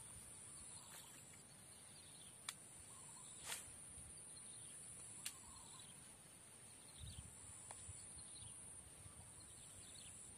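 Faint outdoor ambience with a bird giving short falling chirps again and again over a steady high whine. Three sharp clicks come in a few seconds in.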